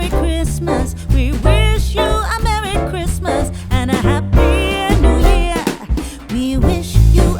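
Music: a song with a singing voice over a strong bass line.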